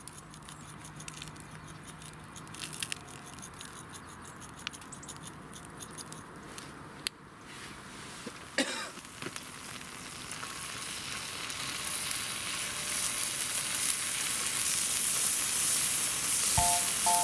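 Food frying in a hot pan, sizzling. The first half has scattered sharp crackles; from about ten seconds in the sizzle swells and grows steadily louder.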